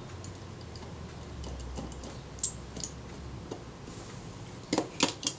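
Light metal ticks and clicks as a small screwdriver backs a tiny screw out of a Kodak Retina IIIc's light meter and the meter housing is lifted off the top plate. A quick run of sharper clicks comes near the end.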